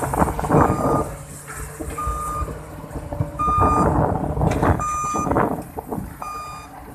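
Kobelco SK330-8 excavator's travel alarm beeping, a steady high tone repeating about every second and a half, over the running diesel engine and irregular machine noise.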